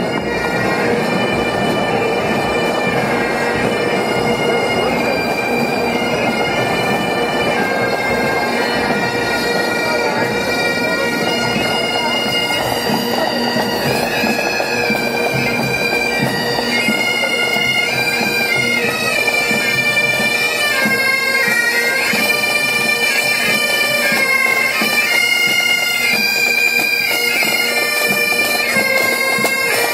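Great Highland bagpipes of a marching pipe band playing a tune over a steady drone. The melody comes through more strongly from about halfway through as the band draws near.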